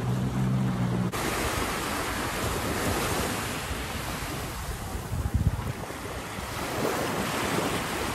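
A jet ski's engine runs steadily for about a second and cuts off abruptly. Small waves then wash onto the shore, with wind buffeting the microphone in low gusts.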